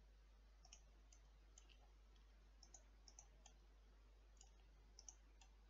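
Faint computer mouse clicks, scattered and irregular, over near silence.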